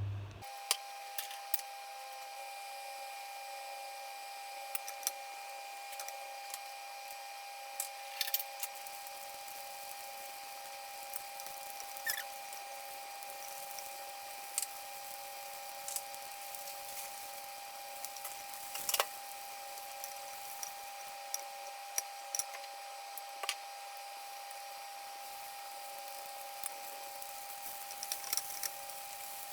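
Corn fritters frying in a pan: a steady sizzle with scattered sharp pops and crackles, over a steady faint tone.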